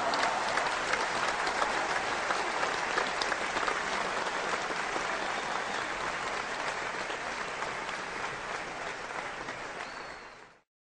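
Large crowd applauding: dense, steady clapping that tapers slightly, then fades out near the end.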